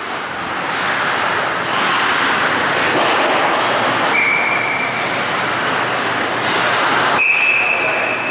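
Hockey referee's whistle blown twice, a short blast about four seconds in and a longer, slightly higher one about seven seconds in, over the steady noise of skates on the ice.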